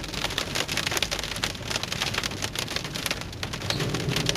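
Heavy rain mixed with hailstones striking hard surfaces: a dense, continuous clatter of many small sharp impacts.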